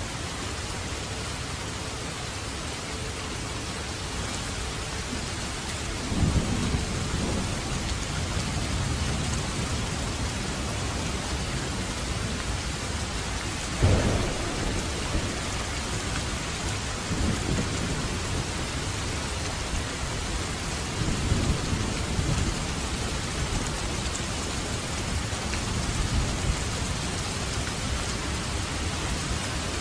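Heavy rain falling steadily, with rolls of thunder: a low rumble about six seconds in, a sharp loud clap near the middle, and several more rumbles after it.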